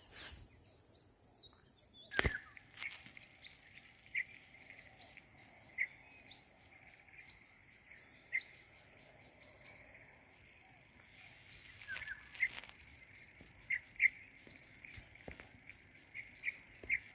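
A bird chirping in short repeated notes over a steady high insect drone, with one sharp click about two seconds in.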